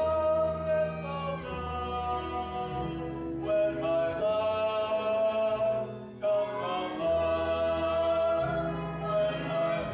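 A young man and a young woman singing a stage-musical ballad duet, with long held notes over a soft, sustained instrumental accompaniment.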